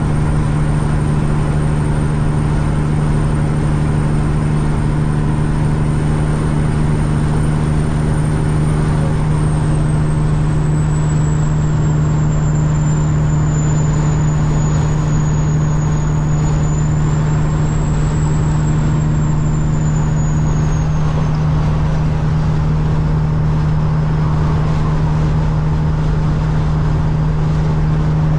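Semi-truck diesel engine running at a steady cruise, a constant low drone with a faint high whistle that slides slowly lower over the middle stretch.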